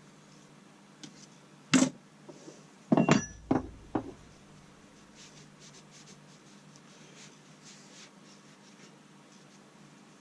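Metal parts of an old adjustable wrench knocked and set down on a workbench: a handful of sharp clinks between about two and four seconds in, one ringing briefly. Faint light scratching follows.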